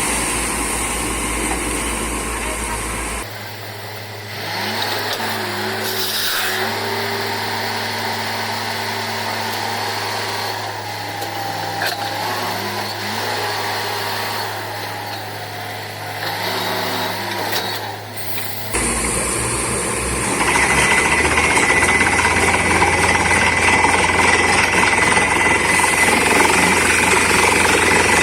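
Borewell drilling rig and its air compressor running, with the down-the-hole hammer pounding as it drills. In the middle stretch the machine noise drops away to a steady hum with a voice over it, and the loud drilling comes back and grows louder near the end.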